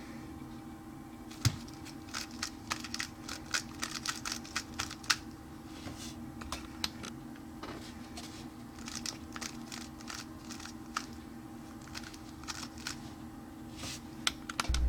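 3x3 speedcube being turned: quick runs of plastic clicks from the layers snapping round, in clusters with short pauses between, over a faint steady hum.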